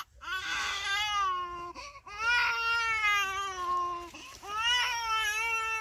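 Baby crying: three long wails with short breaths between them.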